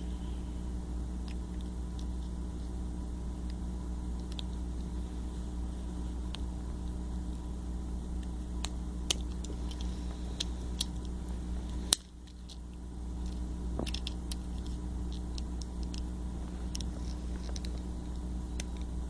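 Scattered small clicks and taps from handling and working at a Hexbug remote controller's plastic casing, over a steady low background hum. One sharper click comes about twelve seconds in.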